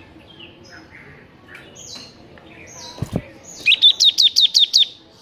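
Bar-winged prinia (ciblek) calling: a few soft, scattered chirps, then about three and a half seconds in a fast run of about nine loud, sharp, falling notes lasting about a second. A single low thump comes just before the run.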